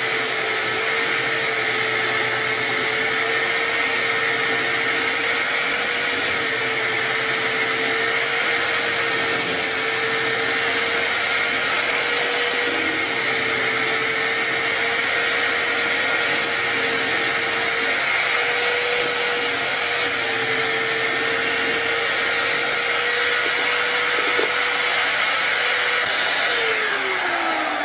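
Electric drill driving a homemade disk sander, its motor running at a steady pitch while a plywood piece is sanded against the spinning sanding disc. Near the end the drill is switched off and the motor winds down with a falling pitch.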